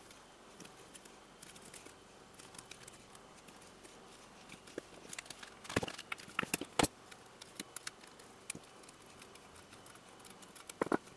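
Electrical tape being wrapped and pressed around the cut edge of a thin sheet-metal bowl: scattered small crackles and taps, with a few sharper snaps just past the middle as metal snips cut the tape.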